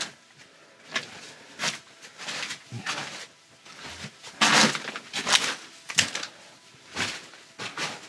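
Footsteps crunching and scuffing over brick rubble and debris in a narrow brick tunnel, as short, irregular crunches about once a second.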